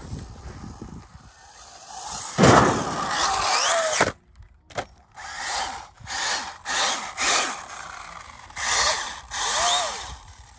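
Brushless electric RC car motor whining under hard throttle, with the tyres tearing over grass. A long full-throttle run comes about two seconds in and cuts off suddenly, followed by a string of short throttle bursts with the pitch rising and falling.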